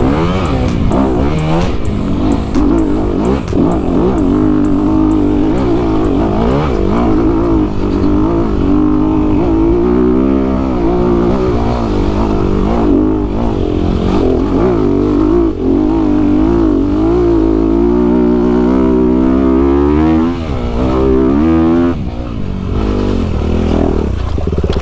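Honda CRF250RX single-cylinder four-stroke dirt bike engine under riding load, revving up and down as the throttle is rolled on and off through the gears, with a few quick rising revs near the end.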